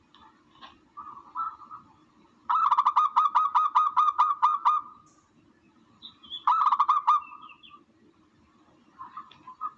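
Recorded bird calls played as a hunting lure: a run of about ten quick, harsh notes a few seconds in, a shorter run a little later, and softer calls at the start and end, over a low steady hum.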